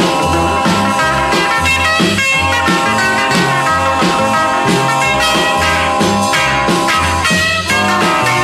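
1950s rock and roll recording playing loud at a fast, steady beat: electric guitar, bass and drums.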